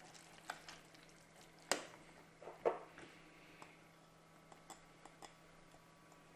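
Silicone spatula stirring thick risotto in a stainless-steel saucepan, with soft scrapes and a few knocks against the pan in the first three seconds, then only faint ticks.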